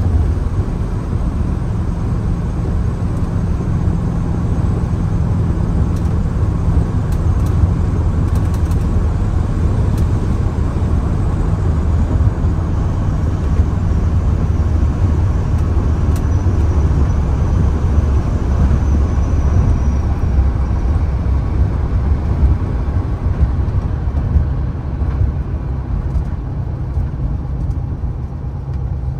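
1970 Volkswagen Beetle driving on the road: its air-cooled flat-four engine running steadily under way, mixed with road and wind noise. The sound eases off over the last few seconds as the car slows.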